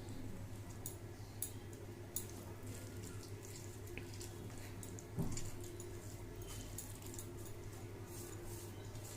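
Someone eating rice and fish curry with their fingers: faint wet clicks and smacks of chewing and mixing, with one louder thump about five seconds in, over a steady low hum.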